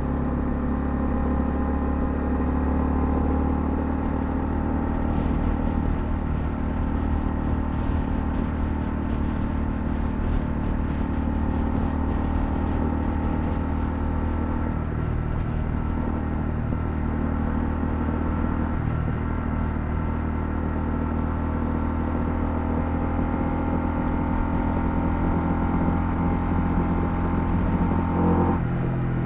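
Honda CL250 motorcycle engine running steadily under way at an even speed; near the end the engine note changes abruptly.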